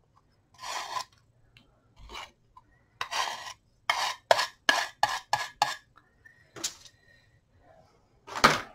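Metal palette knife scraping thick pastel ground out of a plastic jar and against a plastic tub: a run of short scrapes and clacks, several in quick succession midway.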